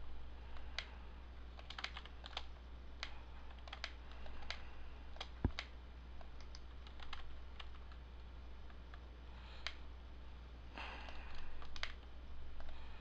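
Computer keyboard keys and mouse buttons clicking irregularly as shortcuts and mouse moves are entered, with one louder tap about five and a half seconds in, over a steady low hum.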